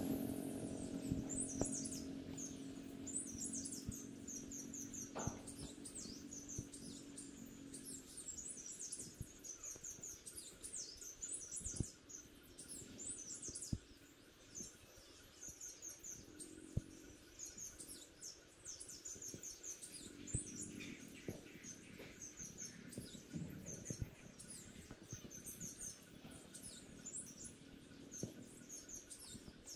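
Small birds chirping and twittering over and over, short high trills in quick runs. A low steady hum sounds underneath for the first eight seconds or so, with a few light knocks scattered through.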